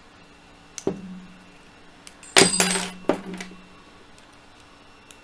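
Small metal tools and parts clinking on a workbench while a paintball marker's stock hinge assembly is worked on. There is a faint click about a second in, then a loud ringing metallic clink about two and a half seconds in, with a smaller clink just after.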